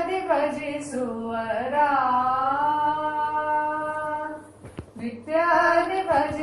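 A woman singing a Kannada devotional song in Carnatic style: a gliding phrase settles into one long held note, then a short breath about three quarters of the way through before the next phrase begins.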